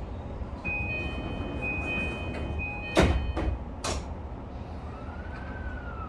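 Inside a JR East E235-series train: the door-closing chime sounds, then the sliding doors shut with a loud knock about three seconds in and a second, smaller knock a second later. Near the end, a whine rises and then falls in pitch as the train pulls away.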